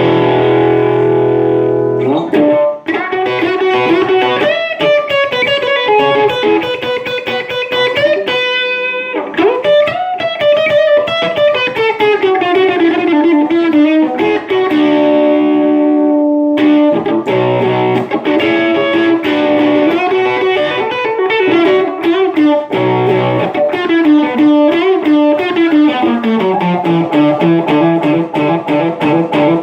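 Electric guitar played through an amp with a Boss DS-1 distortion pedal, set for a classic rock tone. It plays distorted chords and single-note lead lines with string bends, with a short break a little past halfway.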